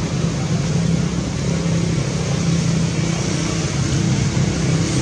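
A steady low hum with hiss over it, unchanging in level.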